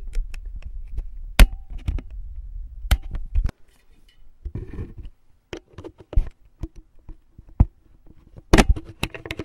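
Handling noise from a Zoom H1 handheld recorder as its stiff microSD slot cover is pried at with fingers, metal tweezers and a small screwdriver: scattered sharp clicks and knocks on the plastic body, the loudest about a second and a half in, with a low handling rumble for the first few seconds and a quick cluster of clicks near the end.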